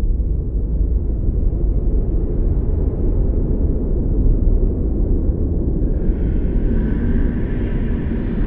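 Storm sound effect: a continuous deep, dense rumble. A higher hiss joins it about six seconds in.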